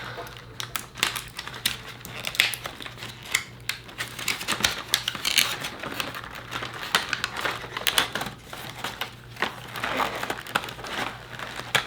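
Plastic doll packaging being handled and pulled at: irregular crinkling with many quick, sharp clicks and snaps.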